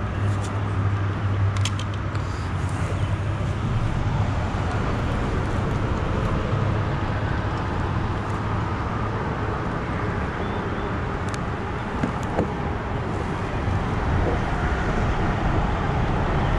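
Steady rumble of road traffic crossing the highway bridge overhead, a constant low drone without pauses.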